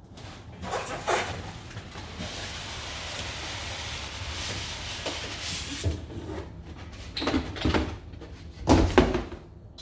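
Cardboard packaging scraping and sliding as a boxed stand mixer is worked out of its upturned box. Then a few knocks, and about nine seconds in a loud clatter, as the hollow dough hook packed loose in the box drops out: a really loud noise.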